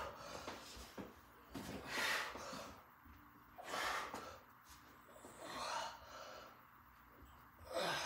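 A man's hard breaths with each rep of heavy single-arm dumbbell rows: four short, noisy breaths about two seconds apart.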